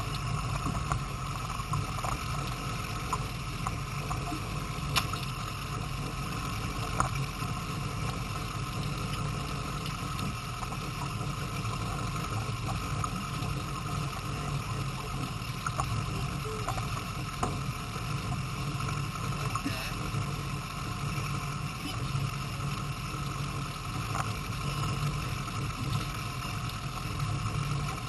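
Force 150 outboard motor idling with a steady low hum, with a few sharp clicks about five and seven seconds in.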